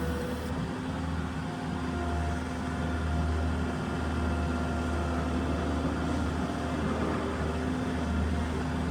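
New Holland skid steer's diesel engine running steadily, a constant low hum with faint steady tones above it.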